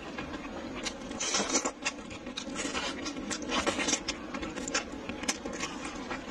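Close-miked eating sounds: chewing and lip smacks with many short wet mouth clicks, loudest in two stretches, about a second in and again after about three and a half seconds, as a piece of braised food is bitten and chewed.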